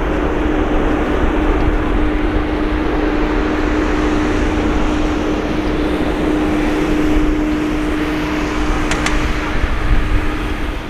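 Boeing 777-300ER's twin GE90-115B turbofan engines running loud and steady in reverse thrust during the landing rollout, a constant hum over a low rumble.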